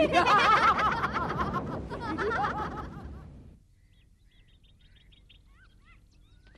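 A group of cartoon boys' voices laughing together, fading out after about three and a half seconds.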